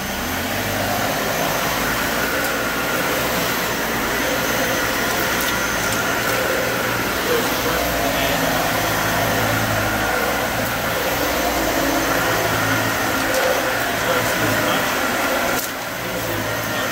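Dyson Ball Multi-Floor 2 upright vacuum running steadily on carpet, going over wood chips left behind after an earlier cleaning pass, with a steady motor whine and a brief dip in level near the end.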